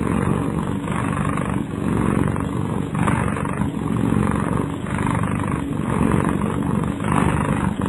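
A domestic cat snoring up close: a steady low rumble with a rasping breath about once a second.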